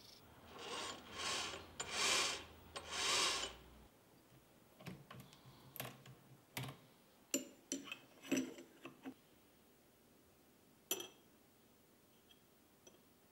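A twist drill spun in a lathe chuck cuts into an aluminium plate in four short pecks over a low motor hum. The hum stops about four seconds in. Clicks and metal knocks follow as the workpiece is handled, with one sharp click about eleven seconds in.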